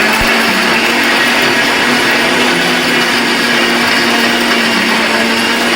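Electric mixer grinder (mixie) running steadily at speed, grinding a wet masala of spices, coconut, tomato and onion with a little water into a paste. A loud, even whir with no change through the run.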